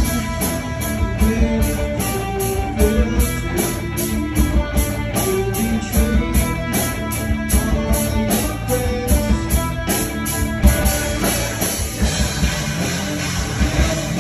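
Live rock band playing amplified through the PA: distorted electric guitars, bass guitar and drum kit. A guitar picks out a stepping melody of held notes over a steady cymbal beat of about three strokes a second. About ten seconds in, the cymbals change to a continuous wash.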